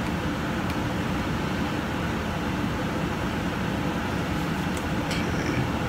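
Steady, even whooshing background noise in a small room, with a few faint clicks near the end as small plastic figure parts are handled and fitted together.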